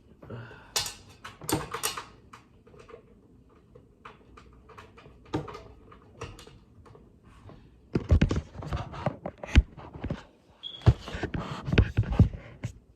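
Clicks, knocks and light scrapes of hands working on a PC case, fitting its glass side panel and running in its screws, with a louder, busier run of knocks over the last five seconds.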